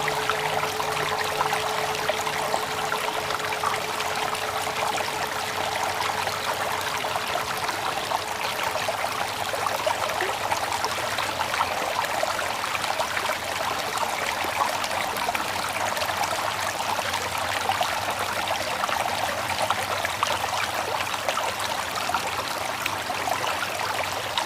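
Steady running water of a stream or brook, an even rushing trickle. A ringing tone with a low hum fades out over the first few seconds.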